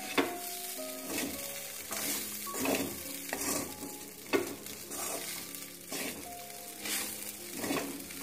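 A metal spatula stirring and scraping flattened rice (poha) in an aluminium kadai over a light frying sizzle, in repeated strokes about once a second. One sharper knock of the spatula on the pan comes about four seconds in. The poha is being turned constantly so it does not stick to the bottom of the kadai.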